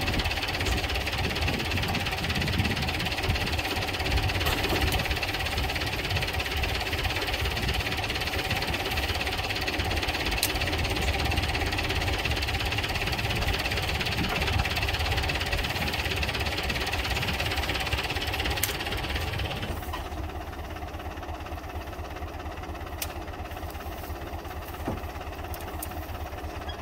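Tractor engine idling steadily. About two-thirds of the way through, the higher hiss drops away and the engine carries on more quietly.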